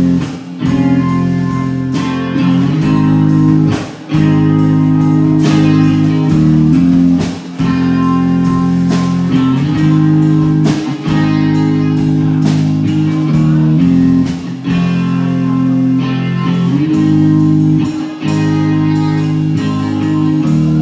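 Live rock band playing an instrumental passage: electric guitar chords that ring for a few seconds at a time over bass guitar, with short breaks between them and sharp drum hits throughout.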